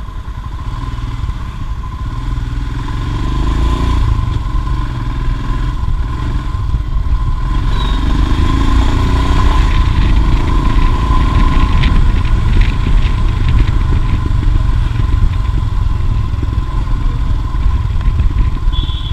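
Royal Enfield Himalayan's 411cc single-cylinder engine running as the motorcycle rides along, under a heavy low rumble that grows louder about three seconds in and then holds steady.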